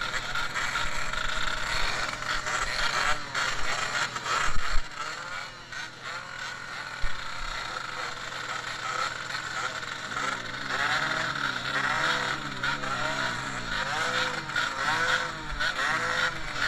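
Several grasstrack racing motorcycles revving, their engine notes rising and falling over one another as they work through the track; from about ten seconds in, one engine is heard more steadily above the rest.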